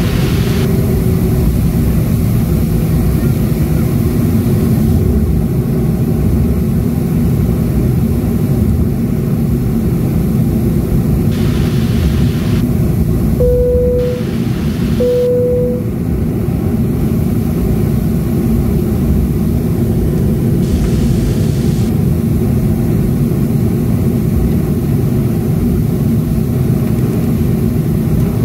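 Cabin noise of a Boeing 737-500 taxiing, heard from a window seat over the wing: the steady low rumble of its CFM56 engines at taxi power. About halfway through, two short steady tones sound about a second and a half apart.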